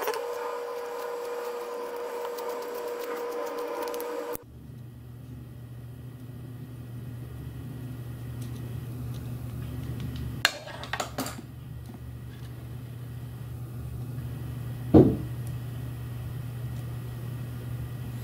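Small metal parts of an ID-1 dosimeter pen clicking as they are handled and pulled apart by hand: a few light clicks, then one louder click, over a steady background hum that drops to a lower pitch about four seconds in.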